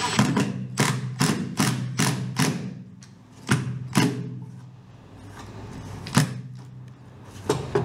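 Makita cordless impact driver driving a screw into fiberglass: a run of sharp knocks about two and a half a second for the first couple of seconds, then a few single knocks spaced out, over a steady low hum.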